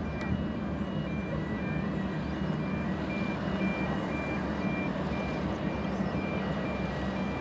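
Steady low rumble of an inter-island ferry's diesel engines as the ship manoeuvres off the pier, with a series of short high beeps, like a reversing alarm, repeating evenly over it.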